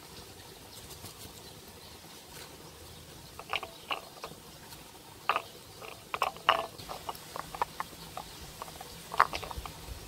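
Irregular light taps and clinks from handling cut bass pieces and a utensil or container while salting them, some with a short ringing tone. They start about three and a half seconds in, and the sharpest comes near the end.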